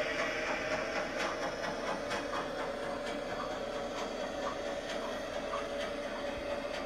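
LGB G-scale model trains running on garden-railway track: a steady electric motor-and-gear hum with irregular light clicks of wheels on the rails.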